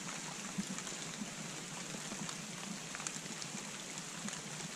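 Steady rain falling on wet fallen leaves, with many small drop ticks, blended with the trickle of a shallow rocky creek.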